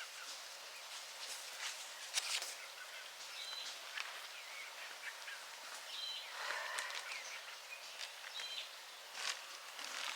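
A wild bird calling outdoors: a short high note repeated about every two and a half seconds, over scattered rustles and crackles and a steady outdoor hiss.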